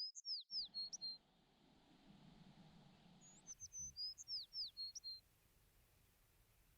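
A songbird singing the same short, quick phrase twice, about three and a half seconds apart: a run of high chirps and falling slurred whistles ending on a couple of steady notes.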